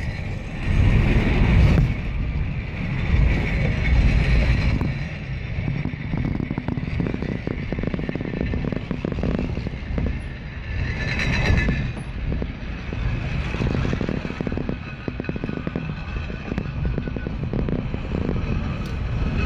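Car of the Lynton & Lynmouth Cliff Railway, a water-balanced funicular, running along its rails: a steady low rumble with a rapid, continuous clatter from the wheels.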